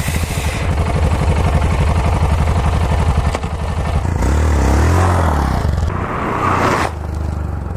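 Yamaha XT660Z Ténéré's single-cylinder engine running with an even thumping beat, revving up and back down about four seconds in. The sound changes abruptly a couple of times where the footage is cut.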